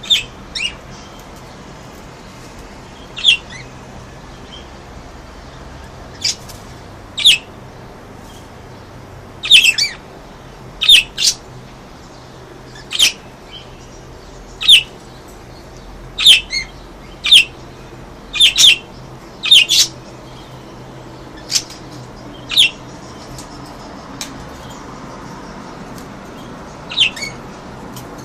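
Pet budgerigars giving short, sharp calls, about twenty of them at irregular intervals, some in quick pairs. A faint steady low hum runs underneath.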